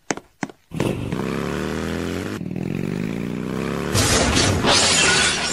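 Motorcycle engine sound effect: two short clicks, then the engine starts up about a second in and runs with revs sliding up and down. About four seconds in it turns louder and hissier, revving hard, then fades near the end.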